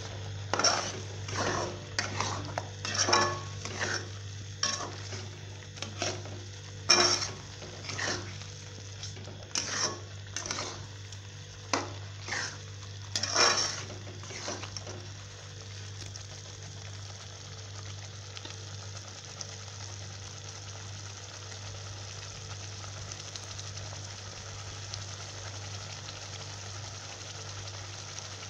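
Steel spoon scraping and clinking against a metal cooking pot while stirring a thick gravy, in irregular strokes that stop about halfway through. After that only a steady sizzle of the gravy cooking remains, over a low steady hum.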